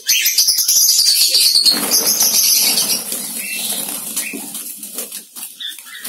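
Diamond doves flapping their wings inside a wire cage as a hand reaches in to catch one, the flapping densest in the first two to three seconds and easing off after.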